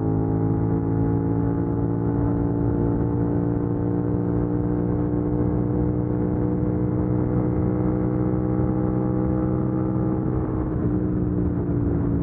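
Suzuki SV650X's V-twin engine running at steady highway speed over road and wind noise, its pitch edging up slowly and then dropping over the last couple of seconds as the throttle eases.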